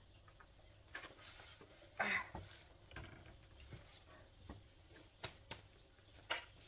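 Faint scattered clicks and taps of eating by hand from bowls and moving about at a low table, with one short louder noise about two seconds in.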